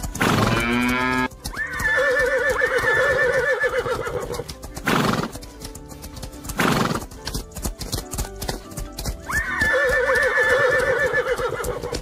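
Horse whinnying over fast galloping hoofbeats. Two long neighs with a trembling pitch come about a second and a half in and again near the end, with a shorter call at the start and two short noisy blasts between them.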